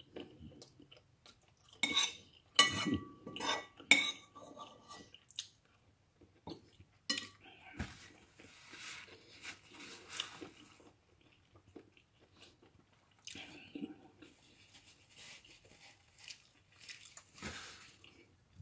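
Metal spoon clinking and scraping against a ceramic bowl, with a cluster of sharp ringing clinks about two to four seconds in, followed by quieter chewing and mouth noises.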